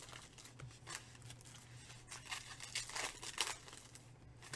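Foil wrapper of a Panini Chronicles baseball card pack crinkling and tearing as it is pulled open and the cards are slid out, in irregular crackles that are loudest about three seconds in.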